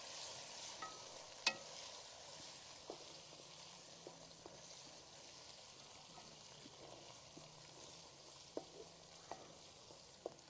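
Onions, ginger-garlic paste and green chillies frying in oil in a kadhai, a faint steady sizzle, with a spoon clicking against the pan now and then as they are stirred.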